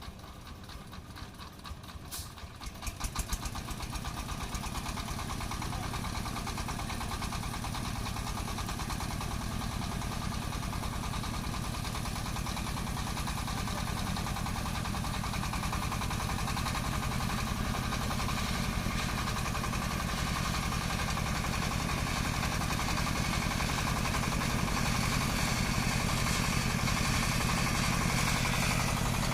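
Engine of a farm vehicle. It is quiet at first, gives a short run of knocks about two to three seconds in, then runs steadily and grows slowly louder.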